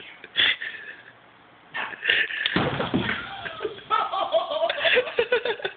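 People laughing, mixed with knocks and a clatter about two and a half seconds in.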